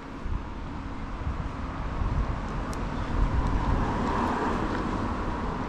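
City street traffic noise, with a vehicle passing that grows louder over the first few seconds and stays up through the middle.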